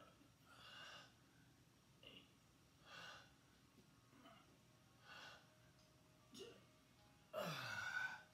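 A man breathing slowly and deeply while holding a stretch, a breath about every two seconds, with a longer, louder exhale with some voice in it near the end.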